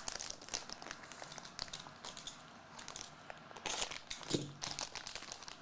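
Irregular crinkling and rustling of plastic packaging as trading cards are handled and unwrapped.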